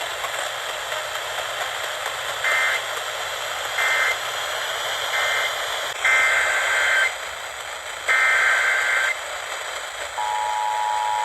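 Emergency Alert System SAME data bursts over a hissy radio channel: three short warbling digital bursts (the end-of-message code), then two longer bursts of the next alert's header. About ten seconds in, the steady two-tone EAS attention signal begins.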